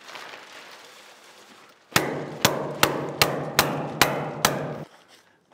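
Hammer tacker driving staples through small cardboard strips and plastic sheeting into the ceiling framing: seven sharp strikes, about two or three a second, starting about two seconds in.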